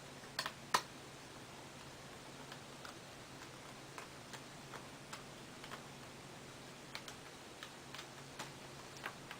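Small, sharp clicks and ticks at irregular intervals from a small Phillips screwdriver working tiny screws out of a laptop screen's plastic bezel, the loudest few in the first second.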